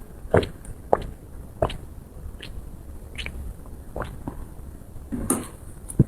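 Close-miked eating sounds: a person chewing soft, chewy food with wet mouth clicks and smacks about every half second to a second, one louder click near the end.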